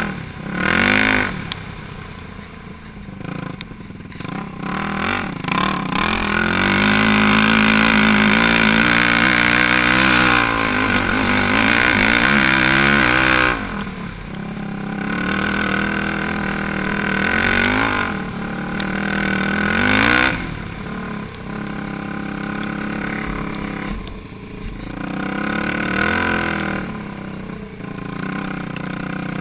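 Yamaha YFZ450 quad's single-cylinder four-stroke engine running under load, its revs rising and falling with the throttle. It climbs and holds high and loud for several seconds about a quarter of the way in, then drops off suddenly and picks up again in shorter surges.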